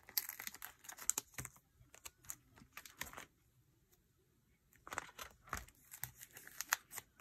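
Plastic card sleeves and binder pocket pages rustling and clicking as photocards are handled and slid into place, in two runs of quick small taps and crinkles with a short pause in the middle.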